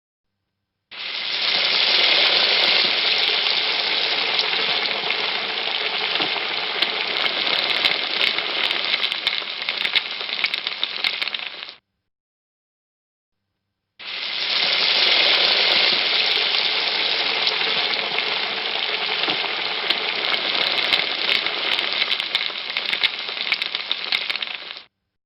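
Food frying: a steady sizzle with sharp crackles. It plays twice, about eleven seconds each time, starting and stopping abruptly with a silent gap of about two seconds between.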